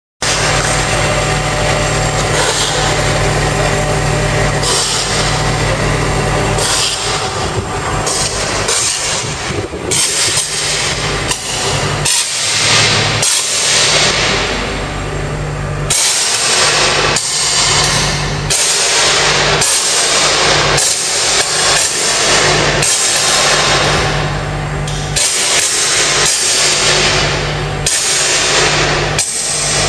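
Electrical arc on a live power cable, spraying sparks: a loud low electrical buzz with dense crackling and sizzling over it. It cuts out briefly and restarts many times at irregular moments.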